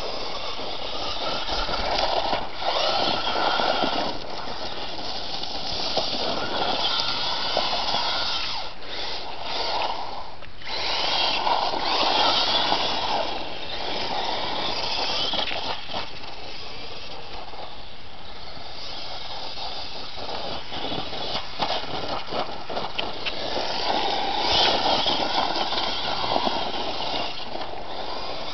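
Traxxas 1/16 E-Revo VXL RC truck's brushless electric motor and drivetrain whining as it is driven hard over loose dirt. The tyres hiss on the dirt, and the sound swells and fades with the throttle, dipping briefly about ten seconds in.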